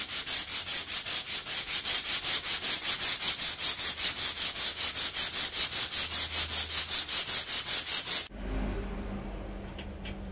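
Sandpaper rubbed quickly back and forth around a 25 mm steel bar by hand, a rhythmic scraping of about five strokes a second, taking the burrs off the bar so it will fit the bearing. The sanding cuts off sharply about eight seconds in, leaving a low hum and a few faint clicks.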